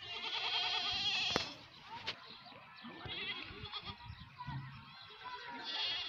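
Goats bleating: one long wavering bleat in the first second or so, then shorter, fainter bleats about halfway through and near the end. Two sharp clicks follow the first bleat.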